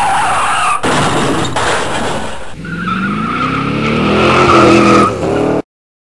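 Dubbed car sound effects in several spliced pieces: engine noise and tyre squeal, then an engine revving with rising pitch under a steady high tyre squeal, cutting off suddenly about a second before the end.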